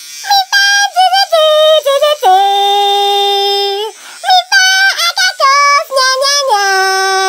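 High-pitched, sped-up or synthetic singing voice carrying a melody of short, stepped notes, with two long held notes.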